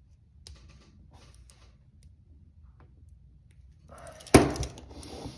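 Handcuffs being handled: a few light clicks, then a loud thunk about four seconds in followed by a short rattle.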